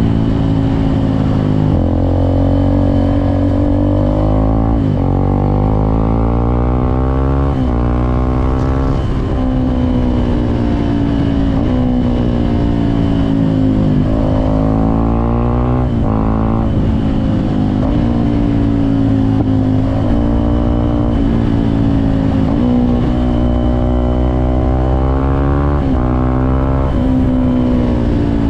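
Suzuki Gixxer SF 250's single-cylinder engine pulling under way, its pitch climbing and then dropping sharply again and again as the bike accelerates and shifts up and down through the gears.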